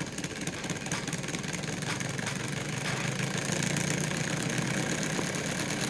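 Homemade two-rotor Bedini pulse motor, its magnet rotors spinning up after starting: a mechanical whir with rapid ticking that grows louder over the first few seconds, then runs steady with both rotors in sync.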